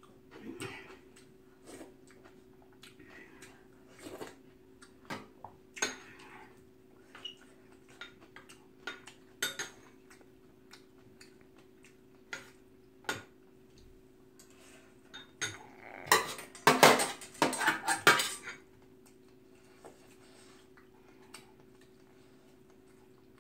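Metal chopsticks and a spoon clinking against a stainless steel bowl and metal tray while eating: scattered single clinks, then a quick run of clattering about two-thirds of the way through, the loudest part.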